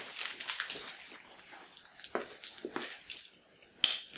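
Plastic shrink wrap being torn and peeled off a cardboard box by hand: irregular crinkling and rustling, with a sharp snap a little before the end.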